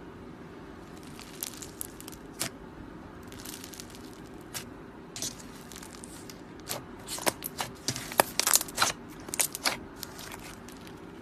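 Slime being squeezed and pressed by hand, giving off irregular crackles and small pops, sparse at first and coming thick and fast over the last few seconds.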